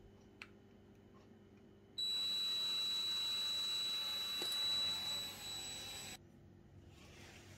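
A steady high-pitched electronic tone over a hiss, lasting about four seconds, switching on about two seconds in and cutting off suddenly.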